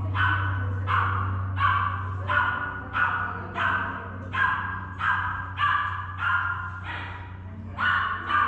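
A dog barking over and over in a steady, regular rhythm, about three barks every two seconds, with a faint steady low hum underneath.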